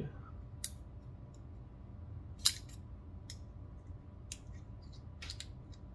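A few small, sharp clicks of metal knife parts touching as the blade and pivot washer of a Benchmade Mini-Bugout folding knife are fitted into its handle. The loudest click comes about two and a half seconds in, with a quick cluster near the end.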